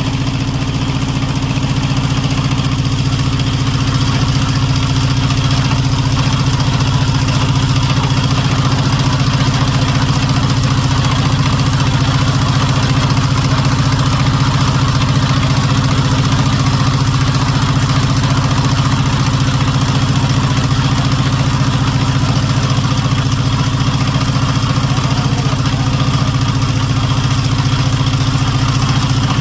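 A motor engine running steadily at an even speed, with a deep, constant hum and fine rapid pulsing from its firing.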